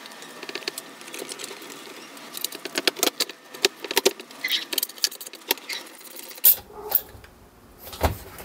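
Small metal clicks, taps and rattles of a hand tool driving a screw into a plastic chain guard on a motorcycle swingarm, with the guard and parts handled on the workbench. A few louder knocks come near the end.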